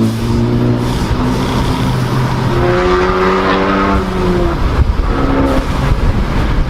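Ford Focus ST with an aftermarket high-flow stainless-steel exhaust and cutout, its engine running hard under throttle. The note holds steady, rises about three seconds in, then falls back.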